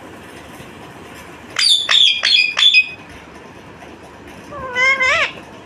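Indian ringneck parakeet calling: a quick run of four sharp, shrill squawks about a second and a half in, then one longer wavering call near the end.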